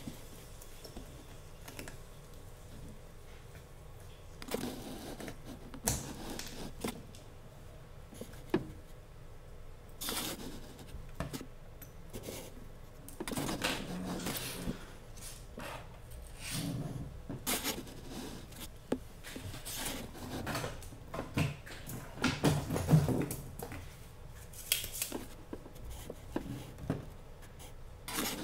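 Irregular clicks, taps and light clatter of small hand tools, such as a soldering iron and a desoldering pump, being picked up and handled on a workbench, mixed with close rustling. The knocks come thickest about three-quarters of the way through.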